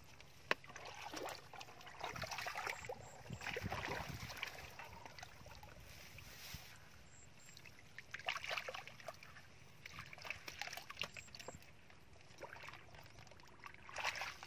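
Shallow muddy water splashing and sloshing in irregular bursts as a person wades and scoops with their hands and a plastic basket, with a sharp tick about half a second in.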